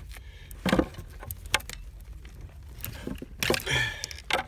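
Hand work on car parts: a few sharp clicks and knocks with a short rustle near the end, over a low steady hum.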